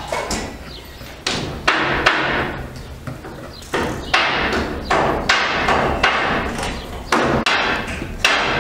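Kitchen knife chopping chicken meat on a wooden cutting board: a dozen or so sharp, irregularly spaced knocks, each with a short echo.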